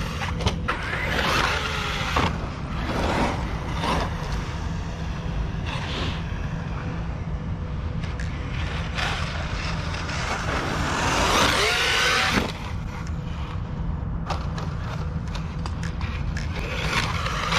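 ARRMA Kraton EXB RC monster truck being driven hard, its drivetrain making irregular clicking over the running noise; the owner suspects grinding internals or the new rear diffs. A louder rush of running noise builds about eleven seconds in and cuts off suddenly a little later.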